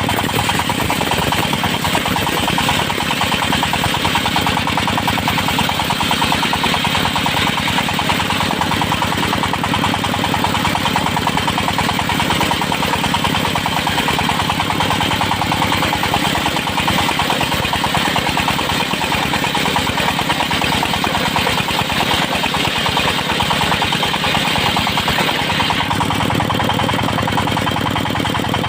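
Engine-driven circular sawmill (serkel) running steadily, its engine firing rapidly under the whine and hiss of the saw ripping teak. About three seconds before the end the high saw hiss drops away and the engine note changes.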